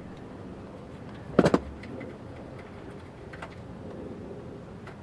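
Pliers working a small standoff screw loose on the steel chassis of an HP ProCurve 4108gl switch: a quick run of three clicks about a second and a half in, with a few faint ticks of the tool around it.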